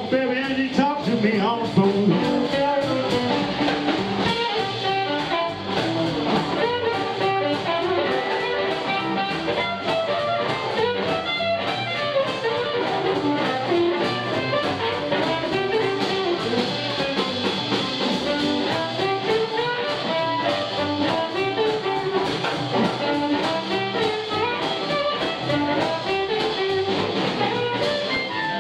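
Live blues band playing an instrumental break: an amplified blues harp (harmonica played into a hand-held microphone) takes the lead over electric guitar, upright double bass and drums.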